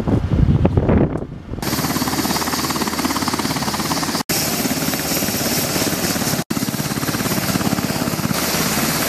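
Coast Guard MH-60 Jayhawk helicopter running with its rotors turning: a steady twin-turboshaft whine with rapid rotor chop. It starts about a second and a half in, after a gusty low rumble, and drops out briefly twice.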